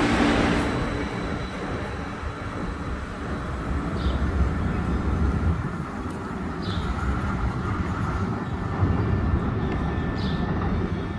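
Calgary CTrain light-rail train pulling out of the station, loud at first and fading over the first couple of seconds, then a steady low rumble remains. A few faint short high chirps come through later.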